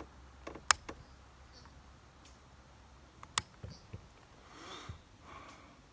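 Two sharp clicks about two and a half seconds apart, the first the louder, each followed by a few softer knocks: the shotgun being handled on the rest while it is aimed. A soft breathy rustle follows near the end.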